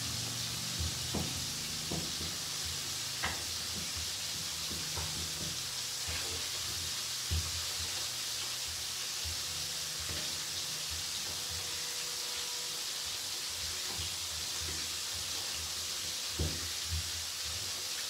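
A kitchen knife clicking now and then against a plate while ingredients are cut by hand into it, a few separate knocks over a steady background hiss.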